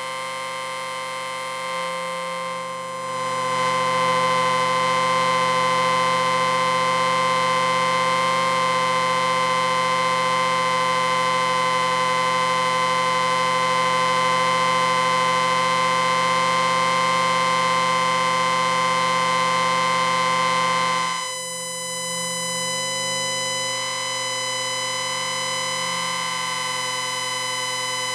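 Science-fiction 'electric ring' sound effect: a steady electric ringing hum made of many held tones sounding together. It swells louder about three seconds in and drops back, thinner, about 21 seconds in.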